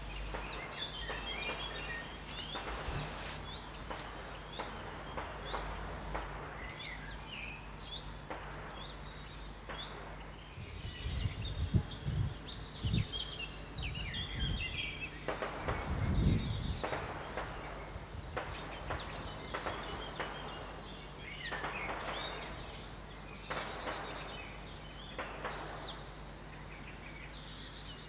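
Distant small-calibre rifle shots from a shooting range: irregular single reports a second or few apart, each with an echoing tail, over birdsong. A low rumble swells briefly twice near the middle.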